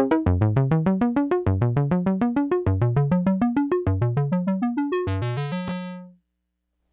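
Radikal Technologies Delta CEP A synthesizer playing a fast sequence of short notes, about eight a second, in a repeating stepping pattern. About five seconds in the tone turns much brighter, then a last low note fades out to silence.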